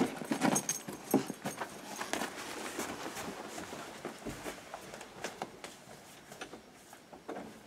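Clattering knocks and rustling as an ice cream tub is grabbed off a shelf, then quick, irregular footsteps on a hard floor that grow fainter.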